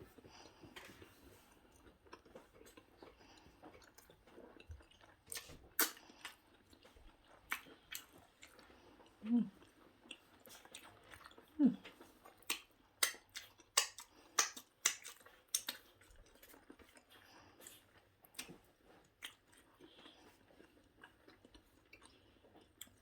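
A person chewing and biting into lángos (fried flatbread topped with cheese and sweet corn) close to the microphone. There are many short wet clicks and smacks, thickest about halfway through.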